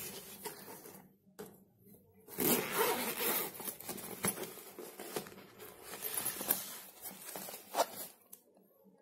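Zipper of a fabric travel bag being pulled open, with the cloth rustling as the bag is handled. It is briefly quiet about a second in, and the loudest stretch of zipping and rustling comes just before the middle, followed by a few sharp clicks.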